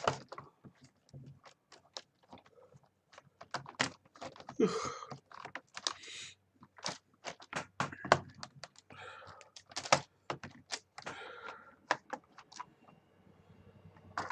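Irregular plastic clicks, rattles and knocks of a gaming keyboard being handled and unscrewed during disassembly, its keys and case clattering.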